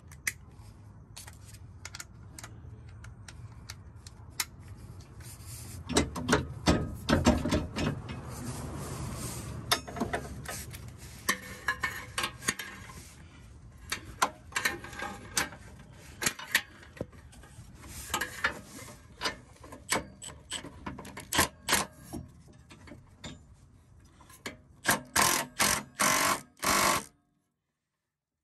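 Irregular metallic clicks and knocks of socket tools working the tow-hitch bolts under a car. Several louder short bursts come near the end, and then the sound cuts off suddenly.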